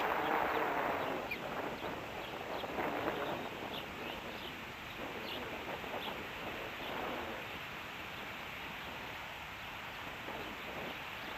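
Osprey at its nest making a scattered series of short, faint high-pitched sounds over a steady background hiss; the uploader wonders whether they are sneezes.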